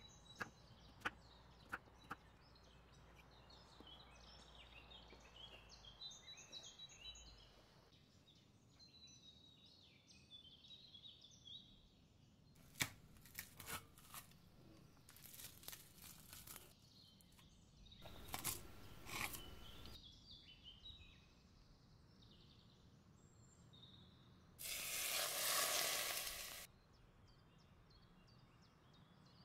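Quiet food preparation: a few sharp taps early on, then scattered clicks and short scraping, rustling bursts, the loudest a two-second rasp about 25 seconds in. Birds chirp faintly in the background.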